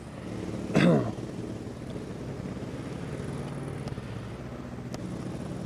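A motor vehicle engine running steadily as a low hum, with a brief falling-pitched voice sound about a second in.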